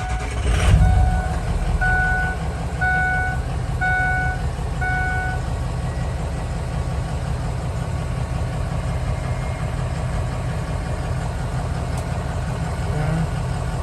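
Van engine catching about a second in and then idling steadily, showing it still runs after the hood swap. A dashboard warning chime beeps five times, about once a second, over the first five seconds.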